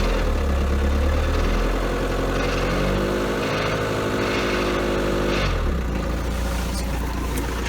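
Rover SD1 2400 SD Turbo's VM 2.4-litre turbo-diesel engine idling, revved up about two seconds in, held, then let back down to idle. The owner suspects the engine, not the gearbox, as the source of a light rattle and vibration.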